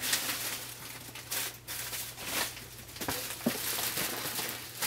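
Rustling and crinkling of paper and plastic packaging being handled, in irregular bursts.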